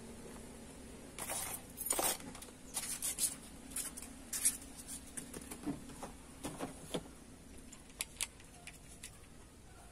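Cardboard box and its styrofoam insert being handled and moved: a run of short scrapes and rustles, then two sharp clicks near the end.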